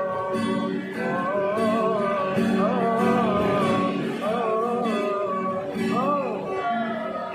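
Acoustic guitar strummed under a sung sholawat melody, the voice holding and ornamenting long wavering notes without clear words.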